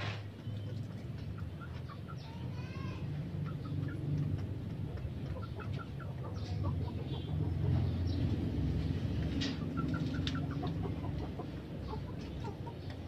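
Chickens clucking in the background over a steady low rumble, with a couple of sharp knocks.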